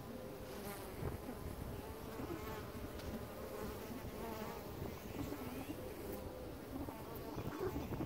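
Honeybees buzzing at a hive entrance, several bees flying close past at once, their buzzes rising and falling in pitch as they come and go.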